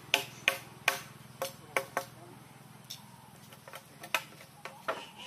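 Hammer driving nails into the wooden slats of a cage frame: a quick run of sharp blows, about three a second, over the first two seconds, then a few scattered blows near the end.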